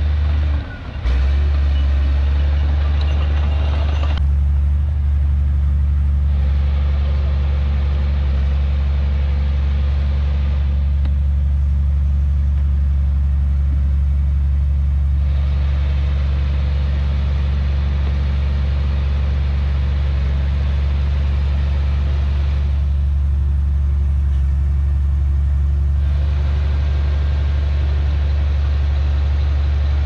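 Heavy earthmoving machine's diesel engine running steadily with a deep low hum, with a brief dip in level about a second in. The higher rattle and hiss above the hum eases off and comes back a few times.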